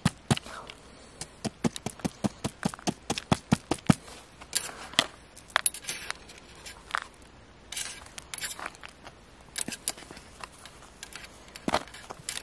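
Small pick and fingers scraping and picking at a crumbly plaster dig block, breaking it away: a quick run of sharp clicks, about four or five a second, for the first few seconds, then slower, scattered scrapes and crumbling rasps.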